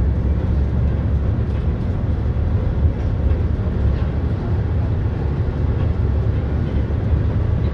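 Volvo 8700LE city bus on the B7RLE chassis under way, heard from inside the passenger cabin: its diesel engine and road noise make a steady low drone that holds even throughout.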